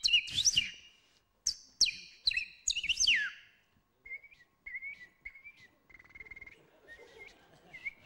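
A man imitating bird calls with his mouth, his hand cupped over it. First comes a run of loud, sharp whistled chirps that sweep down in pitch, then after a short pause a series of fainter, short, steady high whistled notes.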